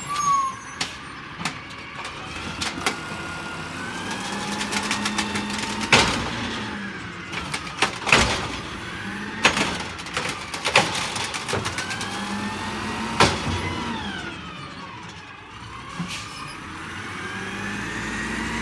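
Peterbilt 320 garbage truck with an Amrep automated side-loader arm working: the engine speeds up and drops back several times, with a whine that rises and falls in pitch. Several loud, sharp bangs come in the middle of the stretch.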